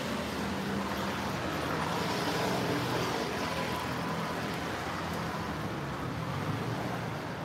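Street traffic: motor vehicles passing on a city street, a steady rumble that swells a little about two to three seconds in.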